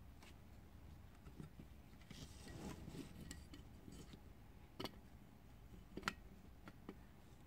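Faint handling of the plastic print head housing of an Epson 1290 inkjet printer: a soft scraping rustle about halfway through, then a few sharp plastic clicks and taps, the loudest one near the end.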